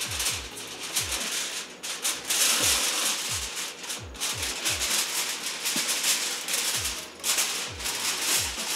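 Aluminum foil crinkling and rustling loudly as a sheet is pulled off the roll and handled over a baking dish. Background music with a low kick-drum beat runs underneath.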